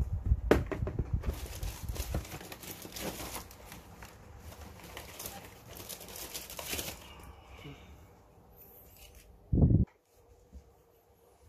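Handling noise: rustling and clicking as hands move cables, test leads and tools on a dismantled TV's metal chassis. The noise thins out, and then there is one short, loud, low thump about nine and a half seconds in.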